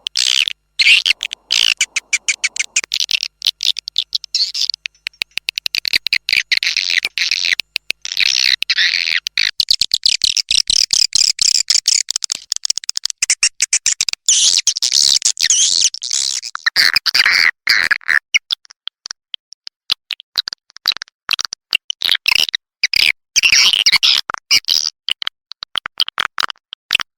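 Swiftlet call track of edible-nest swiftlet twitters played as a lure to draw swiftlets into a bird house. The calls are rapid, high-pitched chattering pulses with short gaps, thinning out for a few seconds past the middle before picking up again.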